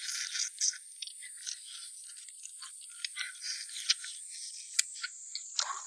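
Mouth sounds of someone gnawing and sucking meat off a braised beef spine bone: irregular wet smacks and slurps, with sharper clicks about four and five seconds in.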